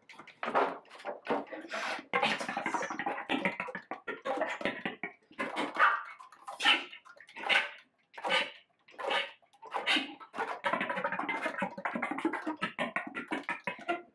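Flute played with extended techniques: breathy, hissing air noise in many short gusts without a clear pitch, broken by brief silences.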